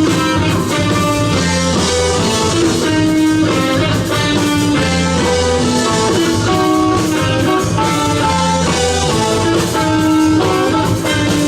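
Band playing instrumental jazz fusion: an electric guitar melody of held notes over bass and drum kit.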